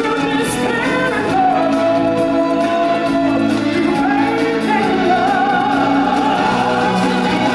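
Live stage-musical singing over full music accompaniment, the voices holding long sustained notes.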